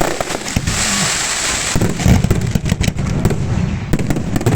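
Fireworks going off: a rapid string of pops and crackles over a low rumble, with a hissing burst about half a second in that lasts about a second.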